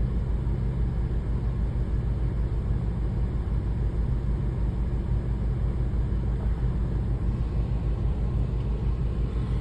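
Shear-sharpening machine running with its 600-grit plate turning: a steady low motor hum that holds even throughout.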